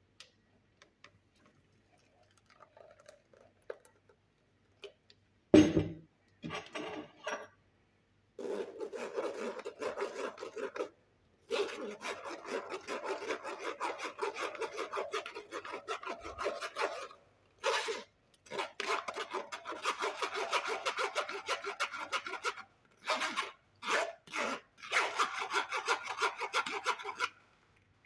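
A sharp knock, then long runs of fast rubbing, rasping strokes with short pauses between them.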